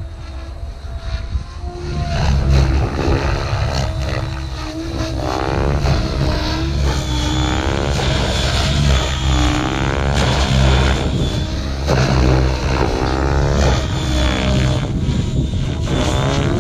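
Radio-controlled helicopter flying aerobatics, its rotor and motor sound rising and falling in pitch over and over as it swoops and flips, louder from about two seconds in.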